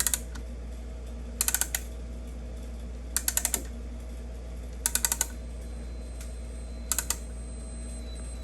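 Ratcheting brake caliper piston press being worked, pushing the caliper pistons back in: five short runs of four or five quick clicks, each run about one and a half to two seconds after the last.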